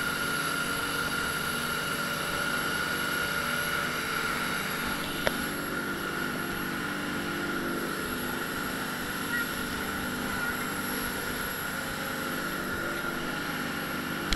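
Motorboat engine running steadily at speed with a constant whine, over the rush of water and spray from the wake. A single sharp click about five seconds in.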